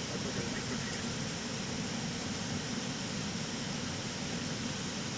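Steady cabin noise on an airliner's flight deck in flight: an even rushing hiss over a low rumble, unchanging throughout.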